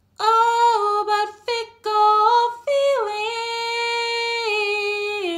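A woman singing unaccompanied: a few sung notes broken by short pauses, then one long held note from about three seconds in, stepping down in pitch near the end.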